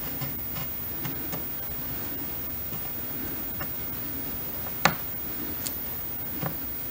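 Pencil scribing a profile onto baseboard trim: faint scratching and small clicks over a steady hiss, with one sharper click about five seconds in.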